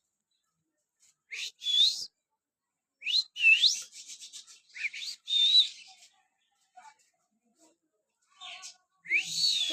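A bird giving a series of short, loud, rising whistled calls with harsh noisy edges, about six in all with pauses between them. A brief quick rattle comes in the middle of the series.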